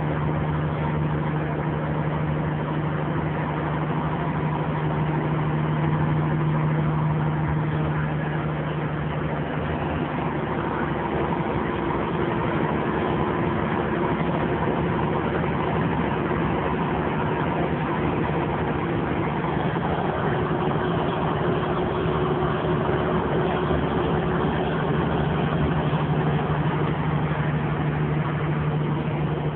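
Kenworth semi-truck's diesel engine heard from inside the cab, a steady drone as it pulls under load up a mountain grade.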